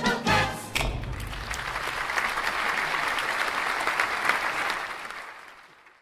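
The closing sung note of the show's finale stops under a second in, and the audience applauds, the clapping fading out near the end.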